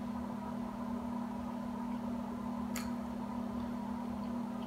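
A steady low hum with one faint click a little past the middle.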